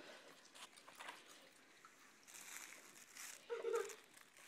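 Faint clicks and rattles of the plastic toys on a baby activity jumper being handled, with one brief soft vocal sound about three and a half seconds in.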